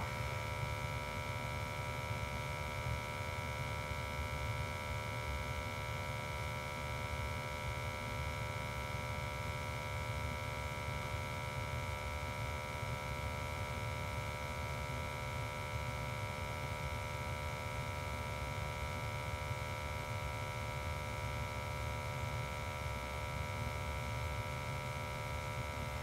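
Steady running sound of a gas-fired hydronic boiler with its burner firing: a low, even rumble under a constant hum with several steady high tones, unchanging throughout.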